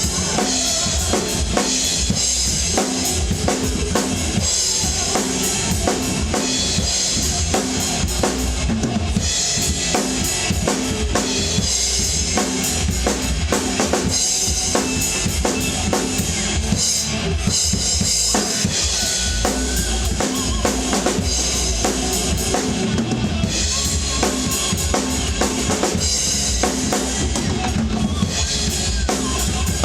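Rock drum kit played hard and fast along with a recorded hard rock song: steady bass drum and snare hits under a constant cymbal wash.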